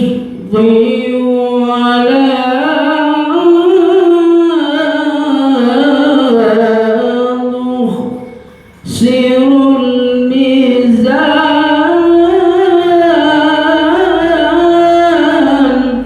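A man singing solo, unaccompanied, in two long, ornamented melodic phrases, with a short break for breath about halfway through.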